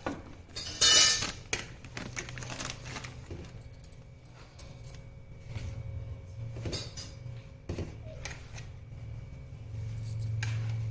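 Hands rubbing ghee into maida in a brass plate, with a rustling of flour and bangles jingling and clinking against the metal in irregular small clicks; the loudest is a brief scrape about a second in. A steady low hum comes in near the end.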